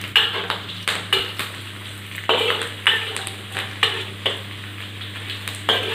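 Steel spatula scraping and turning onions, garlic, ginger and curry leaves in a wok, with irregular strokes over a steady sizzle of the aromatics frying in hot oil.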